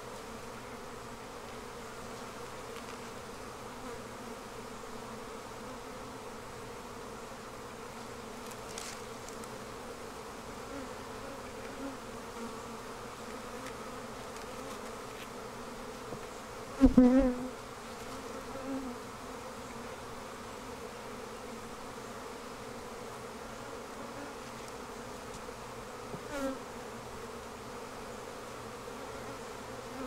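Steady buzzing hum of many honeybees in an open hive being inspected frame by frame. One brief loud burst comes just past the middle, and a smaller one near the end.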